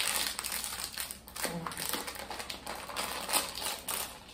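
Crinkly plastic wrapper of a packaged bun crackling as it is handled and pulled open, in quick irregular rustles.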